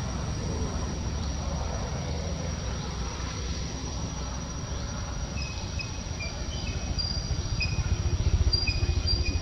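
Outdoor ambience: a low rumble that grows stronger and more buffeting near the end, under a steady high insect drone, with short high chirps repeating from about halfway.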